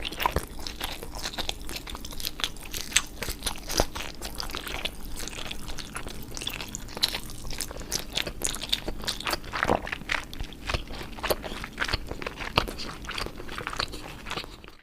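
Close-up eating sound: a person biting and chewing a crunchy food, with rapid, irregular crunches throughout.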